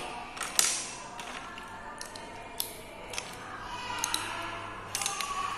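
Plastic Lego bricks clicking and clattering as they are picked out of a loose pile and pressed together by hand: a scattering of short, sharp clicks, the loudest about half a second in.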